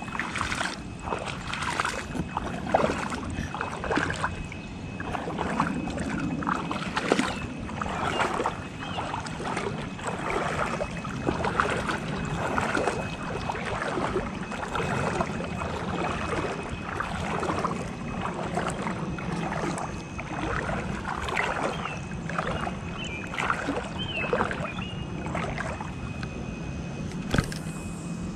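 Water sloshing and splashing in an irregular run of short strokes, roughly one or two a second, as something moves through the water close by.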